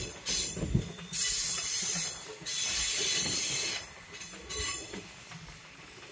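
Passenger train wheels squealing against the rails as the train rounds a tight curve on a viaduct. The squeal comes in several long, high-pitched stretches of a second or so, then dies down to a quieter running sound near the end.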